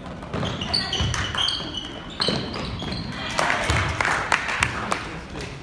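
Basketball game in a gym: a ball bouncing on the hardwood floor and sneakers squeaking in many short high chirps, with spectators' voices. The crowd noise swells briefly past the middle.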